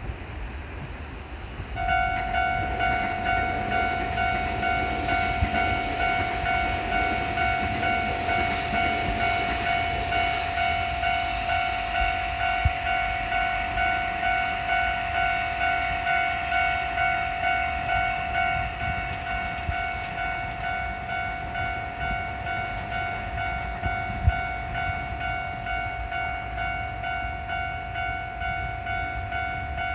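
Japanese railroad crossing alarm starts about two seconds in: an electronic "kan-kan" bell ringing in a steady repeating rhythm. Under the bell over roughly the first half is the rushing noise of a train passing over the crossing.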